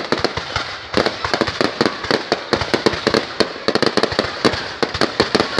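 Fireworks going off in a rapid, irregular string of sharp bangs and pops, many a second, with brief crackling between them.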